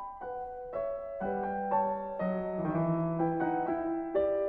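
Gentle background piano music: a simple melody of single notes about every half second over lower sustained notes.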